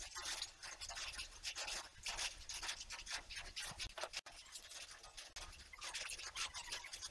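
Irregular scratching and rubbing handling noises from hands moving metal and wooden parts.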